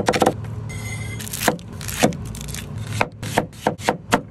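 A cleaver chopping a green pepper and then an onion on a wooden cutting board: a series of sharp, irregular knocks as the blade cuts through and hits the board. A brief hiss comes about a second in.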